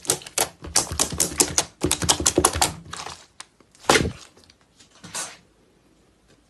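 White fluffy slime kneaded and pressed by hand, crackling in a fast, dense run of sharp clicks and pops. After about three seconds the crackling stops, followed by two separate louder pops.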